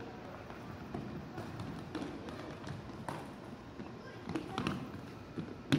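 Futsal game in a gym: indistinct spectator and player voices, with scattered taps of the ball and footsteps on the wooden floor, and one sharp knock of a kick near the end.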